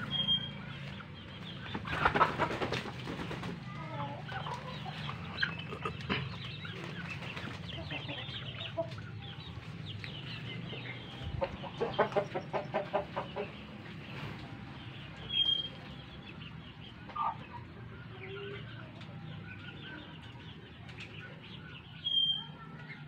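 Fighting-breed chickens clucking around their coops, with two loud bursts of wing flapping, about two seconds in and again around twelve seconds.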